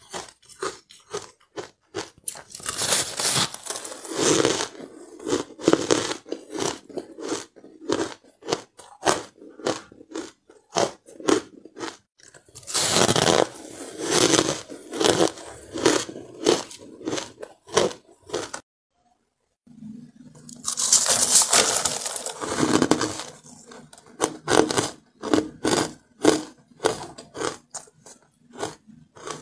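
Close-miked biting and chewing of crumbly carbonated ice: rapid, dense crunching in runs of a few seconds, broken by about a second of silence near two-thirds of the way through.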